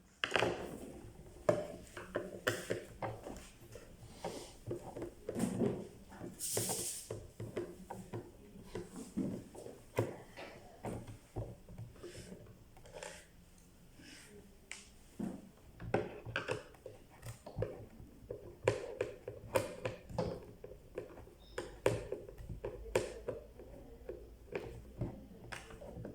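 Irregular clicks, taps and knocks of hard objects being handled, with a short hiss about six seconds in.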